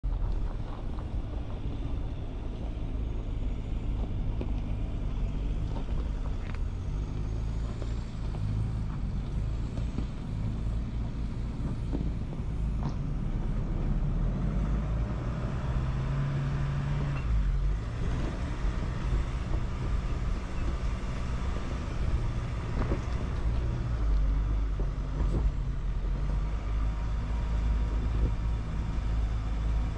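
Off-road vehicle engine running steadily at low speed while crawling over a rocky dirt trail, with a few sharp knocks from stones and suspension.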